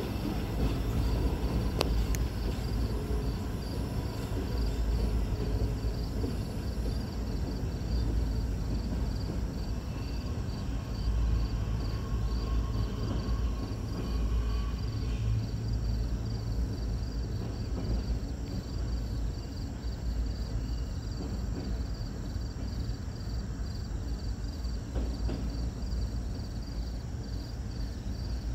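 Empty intermodal well cars at the tail of a freight train rolling away into a tunnel, fading into a low, steady rumble. A high-pitched insect chirp repeats evenly over it.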